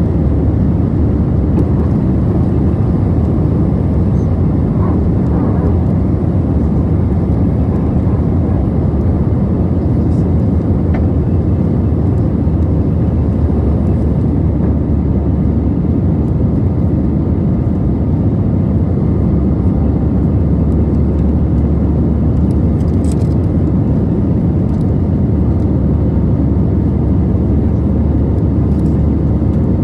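Cabin noise inside an Airbus A320-214 with CFM56-5B engines: a loud, steady rumble of the engines and rushing air.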